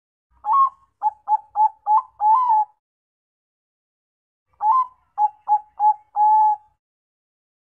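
Bangkok-strain zebra dove (perkutut) cooing: two phrases of its song about two seconds apart, each a higher opening note, then a quick run of short staccato coos and a longer final coo.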